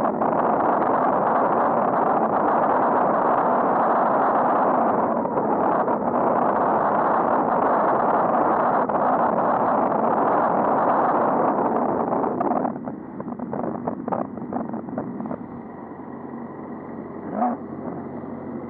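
Steady rushing of wind and traffic on a cyclist's helmet camera while riding. The noise drops off suddenly about two-thirds of the way through, leaving quieter traffic with a few knocks and one brief louder sound near the end.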